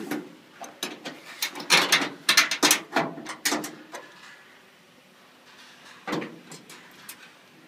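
Sheet-metal panels and small bolts of a combine harvester being handled during assembly: a run of sharp metallic clicks and clatter over the first few seconds, then a single knock about six seconds in.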